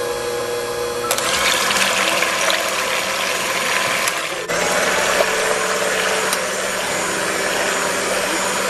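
Electric hand mixer running on high speed, its wire beaters whipping egg whites in a glass bowl toward stiff peaks for meringue. The motor and beater noise grows louder about a second in.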